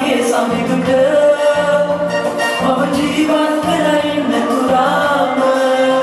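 A song with singing over backing music, with a bass line repeating about once a second, played for a dance.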